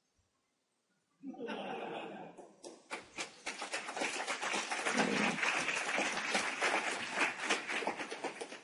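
A second of silence, then an audience laughing and cheering, breaking into applause about three seconds in.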